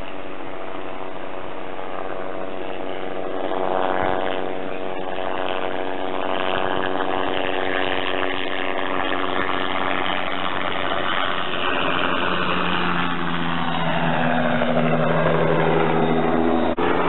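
Crop-spraying helicopter flying low over the field, its engine and rotor running as a steady whine with a buzzing hum. The sound grows louder and its pitch falls as it passes by.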